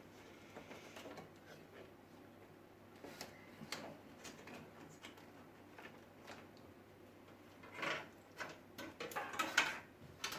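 Handling noise of PC cables being tucked away inside a desktop computer case: scattered faint clicks and rustles, growing into a busier run of clicks and scrapes about eight seconds in.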